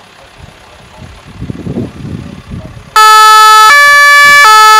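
Dutch police two-tone siren sounded briefly: a higher and a lower tone alternating, each held about three quarters of a second, starting about three seconds in for two cycles and cutting off abruptly. Before it, a low rumble.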